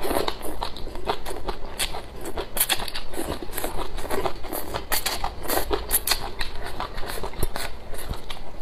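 A person slurping in strands of dressed kelp and chewing it with rice: an irregular, rapid run of mouth clicks and smacks.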